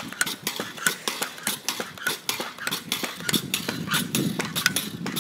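Pogo sticks bouncing on an asphalt street: a fast, uneven run of metallic clinks and taps with each bounce.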